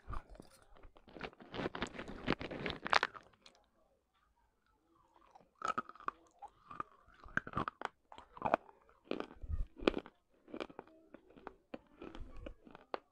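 Close-miked crunching and chewing of broken baked-clay pot shards in the mouth: a dense run of crunches for the first three seconds, a short pause, then irregular bites and crunches.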